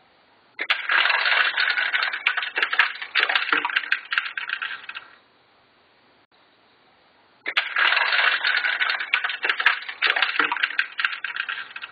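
Small plastic seed pieces rattling down the plastic chute of a Mega Bloks toy silo into the seeder's hopper: a dense clatter of many little clicks lasting about four seconds, then, after a short pause, the same clatter again.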